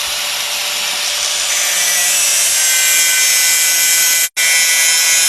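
Electric grinder with a rust-removing wheel grinding the steel head of an old carpenter's axe: a steady whine over a dense hiss, cutting out for an instant about four seconds in.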